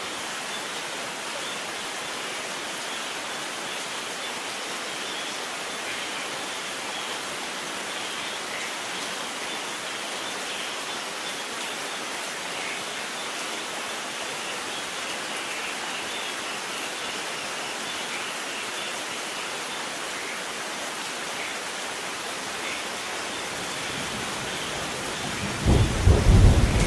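Steady rain falling, an even hiss, with a loud low rumble of thunder building up near the end.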